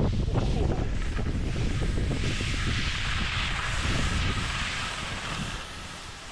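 Wind buffeting a pole-mounted action camera's microphone during a downhill ski run, over the hiss of skis sliding through powder snow. Both ease off near the end.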